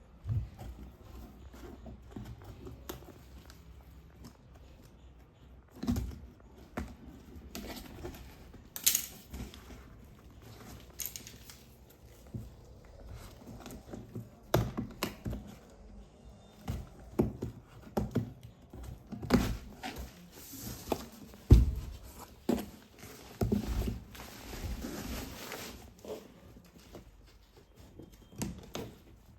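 Packaging being handled: irregular thunks, taps and rustling, with one louder thump about two-thirds of the way through.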